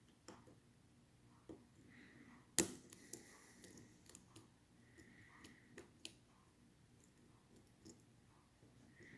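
Small scattered metallic clicks and ticks of a lock pick and tension wrench working the pin stacks of a Schlage Primus Everest cylinder, with one sharper click about two and a half seconds in.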